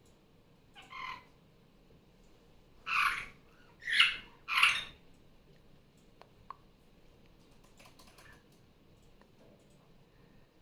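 Barraband parakeet (superb parrot) calling: one short call about a second in, then three loud calls in quick succession a few seconds in, with a few faint clicks afterwards.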